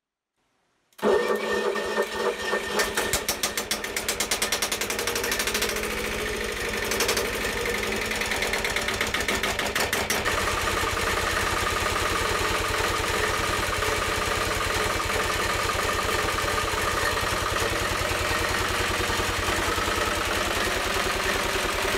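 Lombardini 6LD 325 single-cylinder air-cooled diesel, a Hispanomotor-built LDA 520 driving a water pump, cold-started on its electric starter motor. The starter has a broken solenoid, so a tool is held across its terminal. About a second in the starter cranks, the engine catches and runs unevenly, then settles into a steady run from about ten seconds in.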